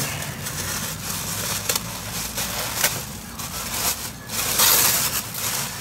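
Plastic mailing envelope crinkling and rustling as it is opened and handled, in irregular bursts with the loudest stretch about four and a half to five seconds in.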